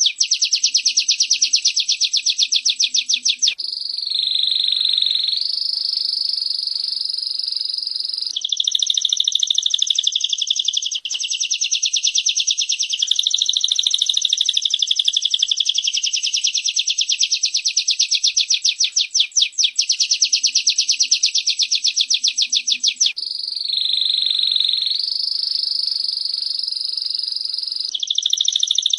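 Birdsong of a female prenjak (prinia) and a canary: fast, high, rattling trills of many notes a second alternate with steadier, smoother warbled phrases. The same passage repeats about every 20 seconds.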